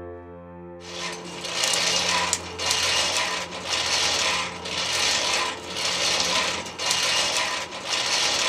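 Hand-cranked forge blower whirring in rhythmic swells, about one a second, as it is turned to blow air into a blacksmith's fire; it starts about a second in.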